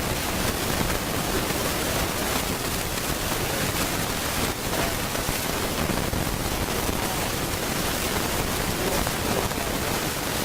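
Steady, even hiss of recording noise across all pitches, with no distinct event standing out of it.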